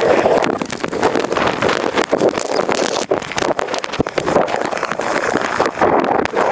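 Dense, continuous rattle and clatter of small wheels rolling over pavement, with many short knocks from cracks and joints and rushing wind noise on the microphone.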